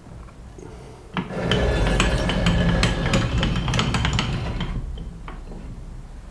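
Steel being worked by hand: a few seconds of scraping with sharp clicks and a metallic ring, starting with a knock about a second in and fading out near the end.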